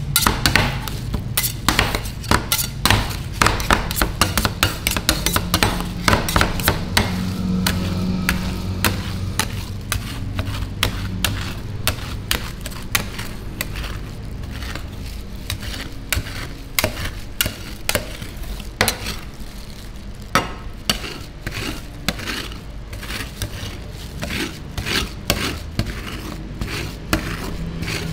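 Two metal spatulas chopping, scraping and spreading ice cream mixture on the chilled steel plate of a rolled-ice-cream cold pan: a fast, irregular clatter of metal striking and scraping metal, thicker in the first half.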